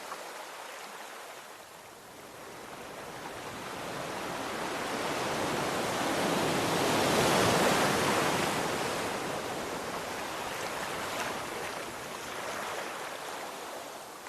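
Sea waves washing ashore: one long swell of surf noise that builds over several seconds, peaks about halfway through, and then recedes in a hiss.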